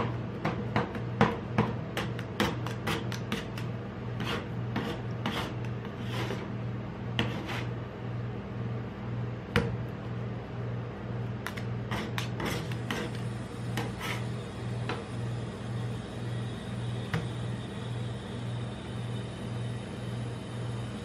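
Metal spatulas chopping and mashing Magnum Double Raspberry ice cream on a steel rolled-ice-cream cold plate: a quick run of sharp taps and clacks against the plate. About halfway through the taps thin out into quieter scraping as the ice cream is spread flat. A steady low hum runs underneath.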